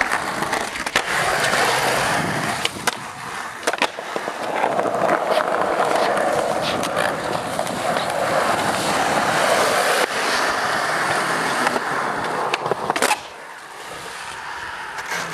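Skateboard wheels rolling over concrete ramps, a continuous rushing noise that swells and eases with the rider's speed. It is broken by several sharp clacks of the board and trucks striking the concrete and the bowl's lip. The rolling dies down after a last loud clack about thirteen seconds in.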